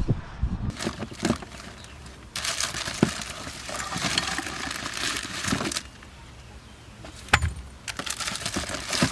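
Rustling and crinkling handling noise in two longer stretches, with scattered sharp clicks and one hard knock about seven seconds in.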